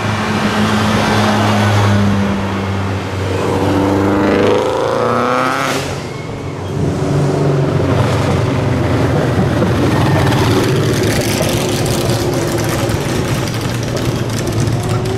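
A car's engine runs and then accelerates hard, its pitch climbing steeply about four to six seconds in before it drops away. After that a dune buggy's engine runs steadily at low pitch as the buggy drives up.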